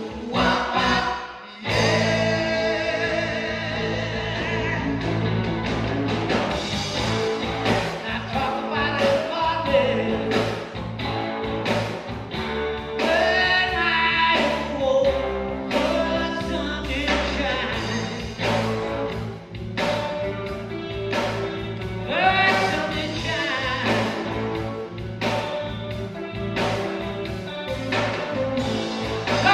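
Recorded song with a singing voice over a band. It drops out briefly about a second and a half in, then carries on.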